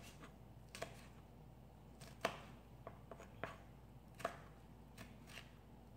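Knife chopping Thai hot peppers on a cutting board: light, sharp taps of the blade on the board, irregularly spaced, roughly every half second to a second.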